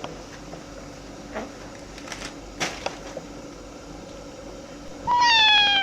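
A domestic cat meowing once near the end, a single loud call that falls in pitch, after a few faint clicks.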